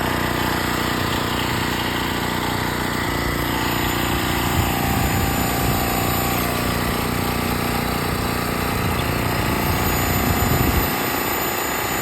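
Electric balloon inflator running steadily with a motor hum, mixed with wind buffeting the microphone; the low rumble cuts off suddenly about eleven seconds in.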